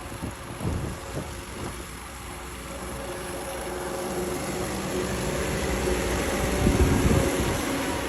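Heavy machinery: a few low thuds and knocks, then steady engine noise that grows louder.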